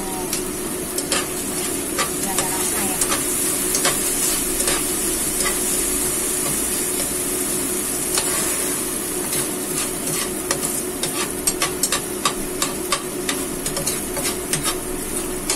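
Chopped food sizzling in a nonstick frying pan, with a spatula stirring and scraping it: a steady frying hiss with short taps and scrapes against the pan, more frequent in the second half.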